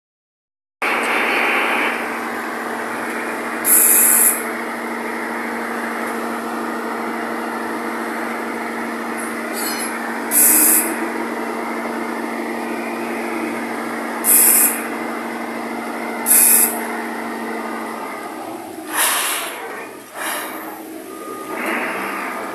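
Dump truck's engine running with a steady drone while its tipper body is raised to dump a load, broken four times by short sharp hisses of air. The drone stops about eighteen seconds in, followed by a brief rush of noise and looser rattling.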